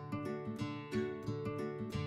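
Background music of plucked acoustic guitar, a run of quick picked notes in a steady rhythm.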